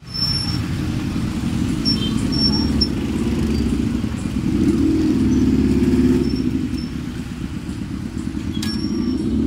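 Small motorbike and scooter engines running in heavy, slow street traffic, a steady mixed drone that swells as bikes pass close about five seconds in. A few short, high-pitched beeps cut through now and then.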